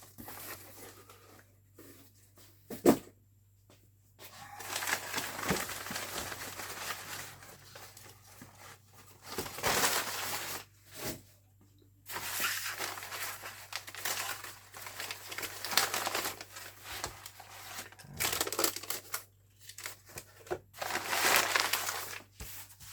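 Packaging being crinkled and torn open in several long stretches with short pauses between, as slot car boxes are unwrapped. A single sharp click comes about three seconds in.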